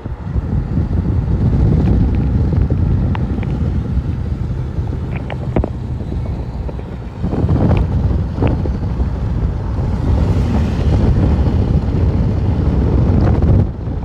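Tropical-storm-force wind gusting across the microphone: a heavy, uneven low rumble that eases briefly about seven seconds in, with a few faint clicks.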